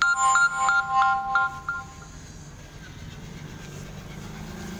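A short electronic jingle of beeping tones, like a phone ringtone or alert, lasting about two seconds, followed by a faint low hum.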